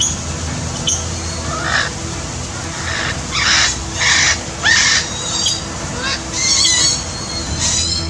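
Male eclectus parrot giving loud, piercing calls: a run of four or five short harsh calls in the middle, then quicker, higher calls near the end.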